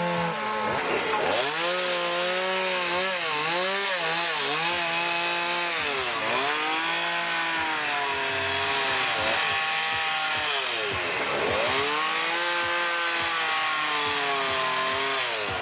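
Chainsaw running and cutting into wood, its engine pitch rising and falling with the throttle and load, dipping sharply and climbing back again several times.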